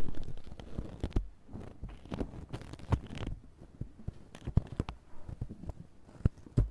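Close-miked rustling and scraping with scattered sharp clicks and soft thumps, as hands and tools work at the ear and head during an ear-cleaning and head-massage session.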